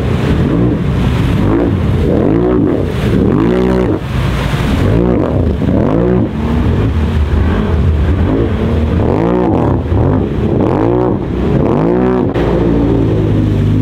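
ATV engine revving up and down over and over, about once a second, as it works through a water-filled mud hole; near the end it settles into a steady run.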